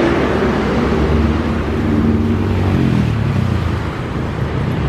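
Airplane engine sound effect: a steady noisy engine rumble with a low hum that sinks slightly in pitch about three seconds in.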